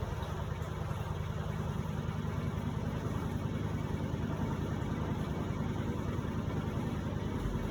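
Electrolux LPE16 washing machine running with a steady low motor hum while washing a load of heavy microfibre blankets.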